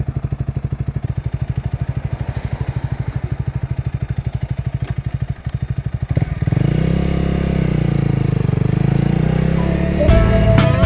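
Motorcycle engine idling with an even, rapid pulsing beat, then pulling away about six seconds in, its note getting louder and rising and falling in pitch as the bike rides off. Guitar music comes in near the end.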